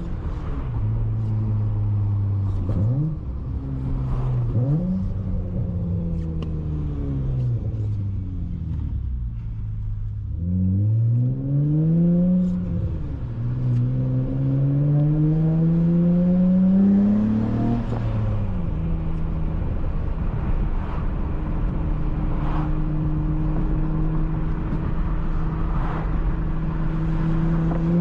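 Honda J32A3 V6 in a 2004 Accord coupe with a six-speed manual, running through a Skunk2 Megapower single-exit exhaust with the resonator deleted, heard on a drive. The engine pitch rises and falls several times as it is revved and let off, then climbs through a long pull. About two-thirds in it drops suddenly, as at a gear change, and holds fairly steady after that.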